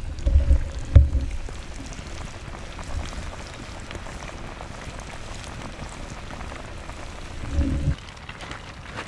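Walleye fillets frying in hot oil in a pan over a campfire: a steady, crackling sizzle. A couple of low thumps come in the first second and another shortly before the end.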